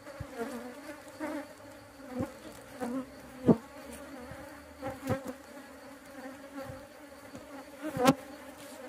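Honeybees buzzing around a hive box, a steady hum with a few brief louder buzzes, the loudest about three and a half and eight seconds in.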